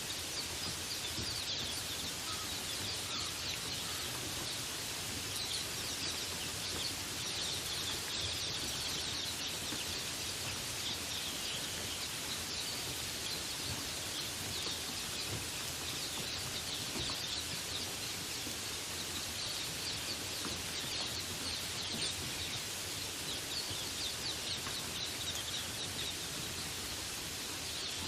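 Steady rain falling, with birds calling over it in short, high, repeated chirps.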